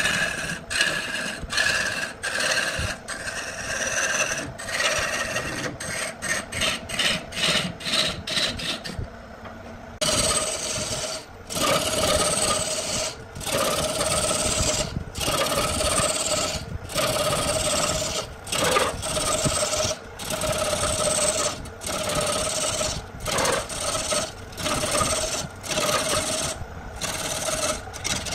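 A hand-held turning tool cutting a large wooden blank spinning on an electric wood lathe, a rough rasping scrape in short strokes broken by brief gaps. The strokes come about once a second in the second half, after a short quieter lull.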